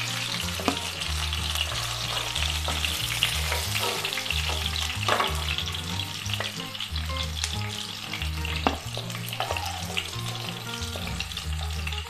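Pieces of rohu fish sizzling steadily in hot mustard oil in a kadhai, fried through and crisp. A steel slotted spoon scrapes and clicks now and then against the pan as it lifts the pieces out.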